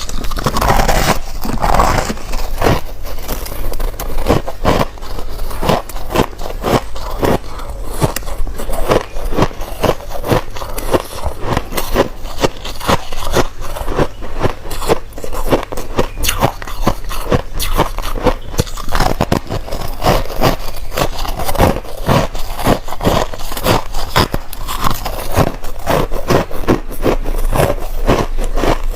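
Crushed ice being chewed close to the mouth: rapid, irregular crunching and crackling, bite after bite.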